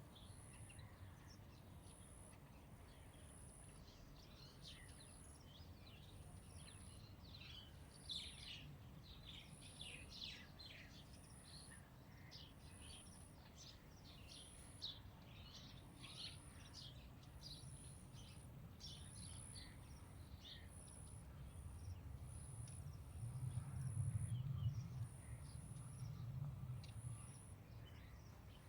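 Faint outdoor ambience with small birds chirping repeatedly and a thin, high note repeating about once a second throughout. A low rumble, like wind on the microphone, swells from about three-quarters of the way in and then eases.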